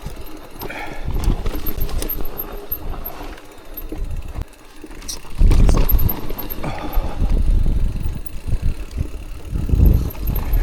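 Mountain bike riding down a wet dirt trail: wind rumbling on the bike-mounted microphone, with tyre noise and rattles and knocks from the bike over bumps. It gets much louder about halfway through.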